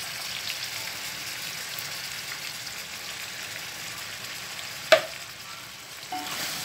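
Crab pieces in melted butter sizzling steadily in a pot as evaporated milk is poured in. A single sharp knock about five seconds in.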